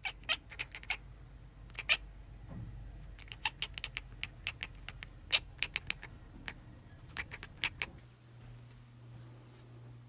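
A cat making a rapid, irregular series of short, sharp clicking sounds, in clusters, for about eight seconds. A low steady hum takes over near the end.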